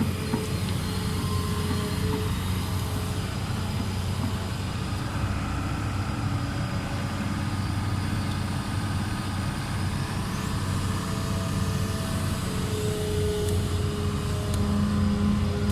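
Diesel engines of heavy earthmoving machinery running steadily at a worksite, a continuous low hum, with a thin higher whine joining about twelve seconds in.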